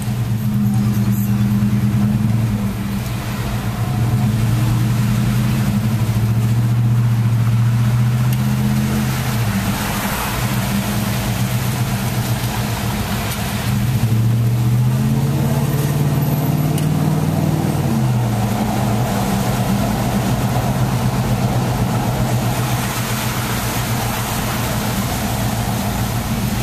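SUV engine heard from inside the cabin while driving slowly through town, with tyre hiss from the wet road. Past the middle the engine note rises as it speeds up, then drops back at a gear change.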